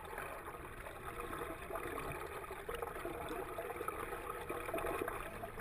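Water rushing and gurgling around a submerged camera, an even muffled wash with faint scattered crackles.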